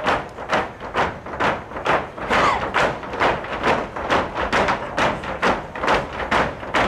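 Folk dancers' shoes stamping a zapateado on the stage, a steady rhythm of sharp stamps about two to three times a second.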